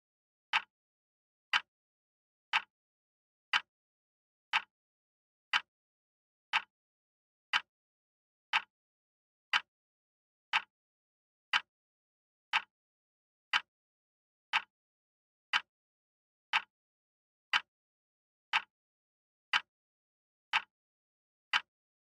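Wall clock ticking once a second: short, sharp, evenly spaced clicks with silence between them.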